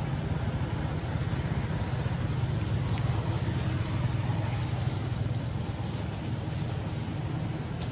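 Steady low rumble with an even hiss of outdoor background noise, and a few faint ticks.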